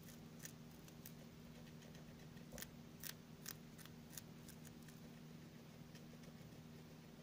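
Guinea pig biting and chewing fresh clover: a series of crisp snipping clicks, bunched mostly in the middle, over a faint steady hum.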